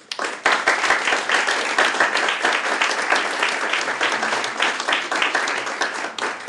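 Audience applauding, breaking out suddenly and tapering off near the end.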